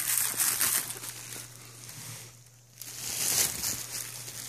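Clear plastic wrapping crinkling and rustling against a cloth bag as a belt is worked out of it by hand, in spurts with a brief lull a little past halfway.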